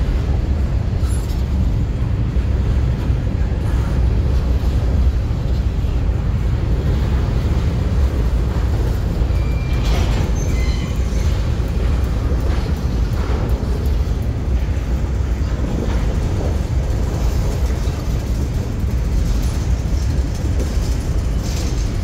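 Covered hopper cars of a CSX freight train rolling steadily past on the rails, with a brief high squeal about ten seconds in. Wind is buffeting the microphone.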